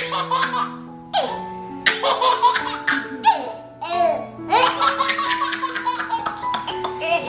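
Baby laughing in repeated bursts of giggles, over background music.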